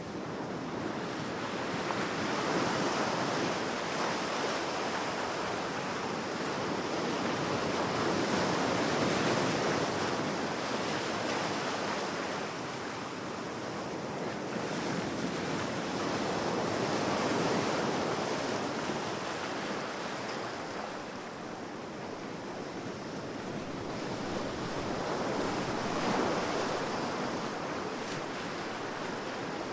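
Sea surf washing onto a beach: a steady rushing of waves that swells and eases every several seconds.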